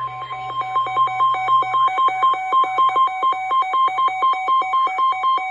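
Electronic weather-alert tone: rapid beeping that switches between two pitches, about four beeps a second, over a steady high tone. It marks the start of a new warning on the weather radio.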